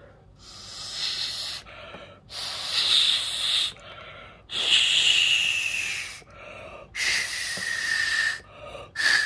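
Breath blown hard through a drinking straw into the pouring hole of a plaster doll mold, five long puffs with short pauses between them, several carrying a hollow pitched tone from the mold's cavity. This pushes thick porcelain slip out of the mold while it drains, so that no air pockets are left.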